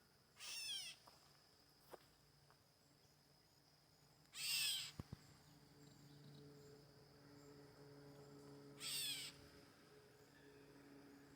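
Three short, high animal calls about four seconds apart, each a quick run of falling notes, over a faint steady hum.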